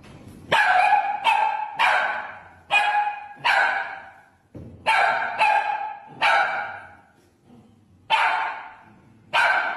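Small fluffy dog barking, high-pitched single barks, about ten in loose groups of two or three, each dying away quickly.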